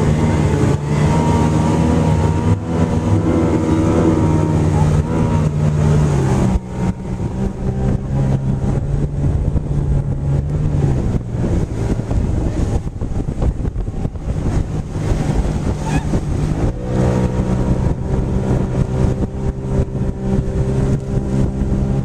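Watercraft engine running steadily while towing a rider. About six seconds in, its even hum gives way to a rougher rushing noise for roughly ten seconds, then the steady hum returns.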